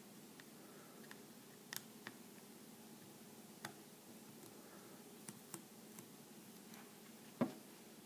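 Faint, scattered clicks and ticks of a small Phillips screwdriver turning out the tiny circuit-board screws of a URC MX900 remote, with one sharper knock near the end.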